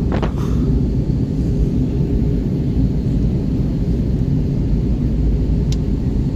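Steady low rumble of an Airbus A320 heard from inside the cabin on landing, with a brief knock just after the start and a faint click near the end.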